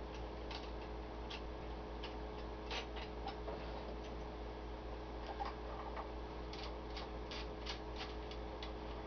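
Scattered light clicks and taps from a Cobra mobile CB radio being handled and turned in the hands, over a steady electrical hum.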